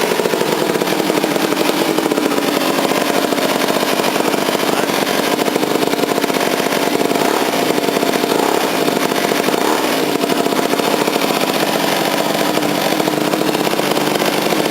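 A small motorbike engine running steadily, now started after water was drained from its fuel tank and carburettor.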